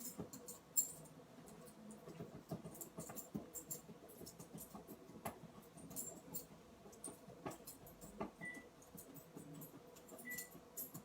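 Soft, scattered clicks and scratches of a calligraphy brush working on paper as a character is written.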